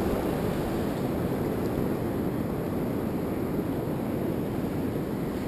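Steady wash of ocean surf mixed with wind buffeting an action camera's microphone, an even low noise with no distinct strikes.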